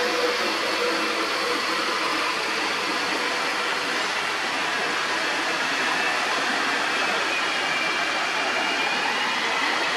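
Steady, even outdoor hiss of forest ambience, with no distinct calls standing out.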